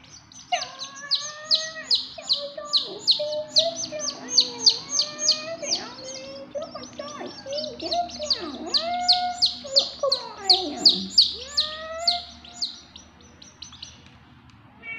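Young chicks peeping rapidly and without pause, several short high peeps a second, with lower curving calls mixed in; the peeping stops shortly before the end.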